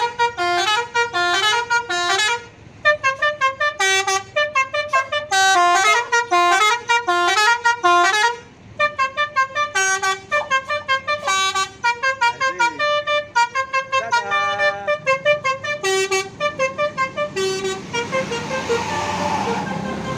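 Tour bus telolet horn, a multi-tone musical air horn, playing a fast melody of short stepped notes for about eighteen seconds. A rushing noise swells near the end.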